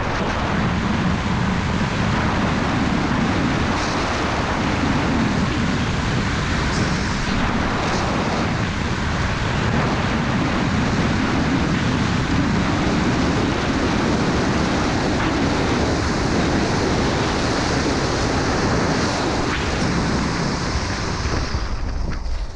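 Wind rushing over a GoPro microphone as a skier runs straight down a hard-packed piste at up to about 76 km/h. Under it is the hiss and scrape of the skis on the snow. The sound is loud and steady.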